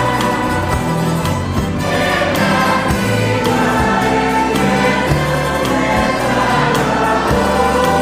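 A church choir and congregation singing a hymn together with a band of accordion, guitars, mandolins and violins, a drum kit keeping a steady beat.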